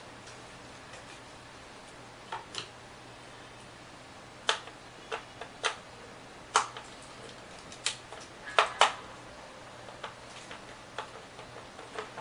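Irregular sharp clicks and taps, about a dozen, loudest around the middle, from a Syma S032G's hand-held plastic radio transmitter being handled and worked on.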